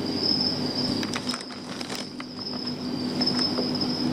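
Plastic bag liners and crumpled newspaper packing crinkling in a shipping box, with a cluster of crackles about one to two seconds in. Under it runs a steady high-pitched trill and a low hum.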